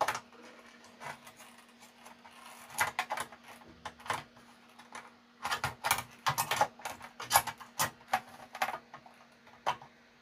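Irregular clicks, taps and light knocks as a CD player's circuit board is set back into its metal chassis and its wiring-harness plug is handled, coming in quick clusters that are busiest from about a third of the way in to near the end.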